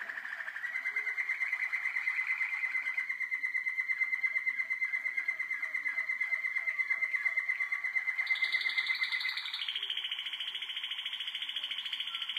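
Young Waterslager (Malinois) canary singing a long, fast rolling trill, with a run of lower rapid notes in the middle; about nine seconds in the song jumps to a higher-pitched roll.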